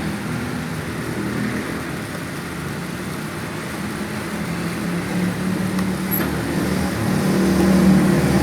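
A steady low mechanical drone with an even pitch, like a running engine or motor, holding level throughout.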